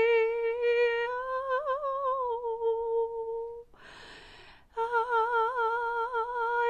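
A woman's wordless light-language vocalising: one long, high humming note that wavers in pitch and fades out about three and a half seconds in. A breath in follows, then a second long held note that wavers.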